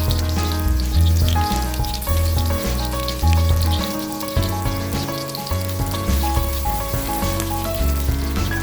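Background music with a repeating bass line, over a crackling sizzle of food frying in a pan.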